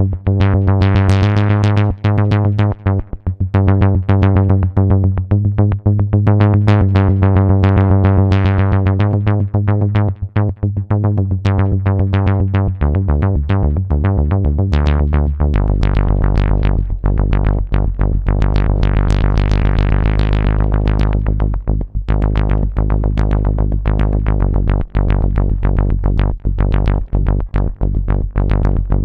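Modal Cobalt 5S synthesizer playing a fast, rhythmic repeating sequence over held bass notes. About halfway through, the bass drops lower and the sound turns brighter.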